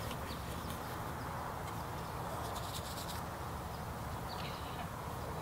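Outdoor ambience: a steady hiss over a low rumble, with a few faint bird chirps and a brief patch of light clicks about two and a half seconds in.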